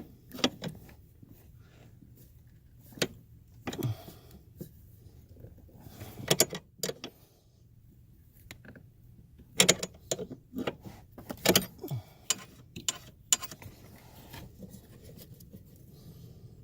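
Scattered sharp metallic clicks and clanks of hand tools and parts being handled while fitting a car's brake light switch under the dashboard, in irregular clusters, the busiest between about 9 and 12 seconds in.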